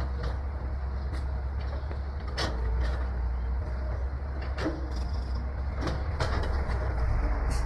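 Excavator's diesel engine running steadily, with several sharp metallic clanks scattered through it.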